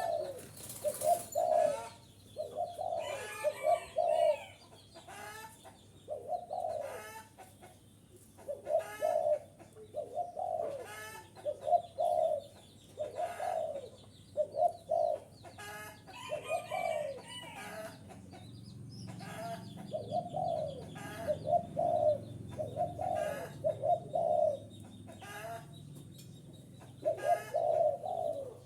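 Spotted dove cooing over and over, in short phrases of low coos about every one to two seconds: the call used to lure wild doves. Higher twittering chirps come in at times.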